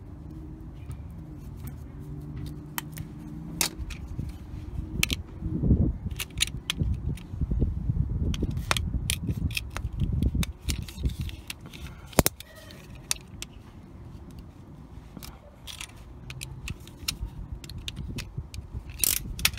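Pliers working a metal CV boot clamp band, then a utility knife cutting into the rubber CV boot: many sharp clicks and clinks over low handling noise.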